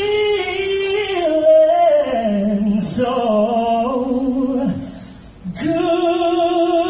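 Trumpet playing a melodic phrase of moving notes, breaking off briefly about five seconds in, then holding one long note with vibrato.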